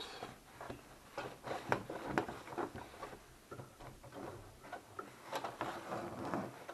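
Scattered light clicks and taps of hands working at a sewing machine and its fabric, with the machine itself not running.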